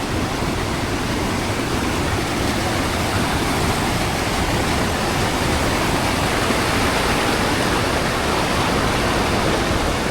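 Steady roar of Tegenungan Waterfall's rushing water, an even noise with a deep rumble underneath that holds at the same level throughout.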